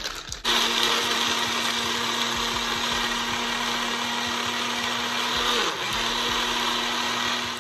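Ninja personal blender running steadily as it blends a protein shake with ice and pecans. The motor starts about half a second in, and its speed dips briefly and recovers about three-quarters through.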